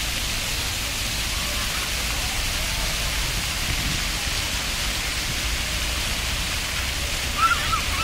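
Steady hiss and splash of many fountain water jets shooting up and falling back onto the wet paving. A child's high voice calls out briefly near the end.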